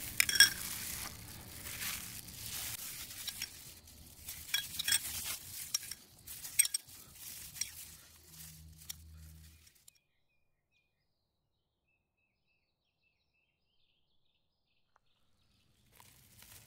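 Sticky rice patties handled with a plastic-gloved hand and dipped into egg mixture in a small glass bowl: irregular light clinks and knocks with a soft rustle of the glove. About ten seconds in the sound cuts off to complete silence, and faint background noise returns near the end.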